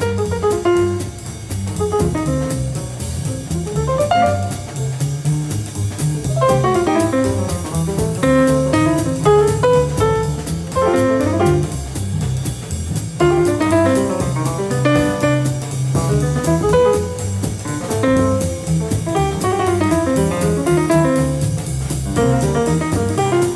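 Live jazz piano solo on a grand piano, with a walking double bass and drums keeping time underneath; the alto saxophone is silent.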